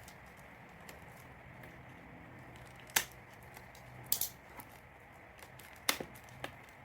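A few sharp clicks and taps from packaging being handled and opened: one about three seconds in, a quick cluster just after four seconds, and two more near six seconds, over a steady low hum.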